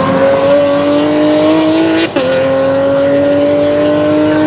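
Race car engine accelerating, its note climbing steadily in pitch, with a quick upshift about two seconds in where the sound briefly cuts and drops in pitch before climbing again.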